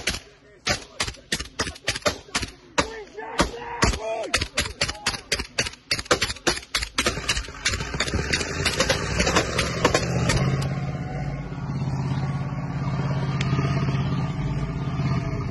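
Rifle fired in quick single shots right at the microphone, several a second for about seven seconds. After that the shots stop and a steady low drone takes over.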